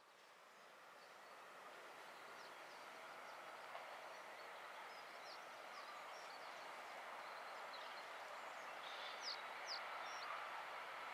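Class 66 diesel locomotive approaching from a distance: a faint, steady noise that grows slowly louder. A few short bird chirps stand out near the end.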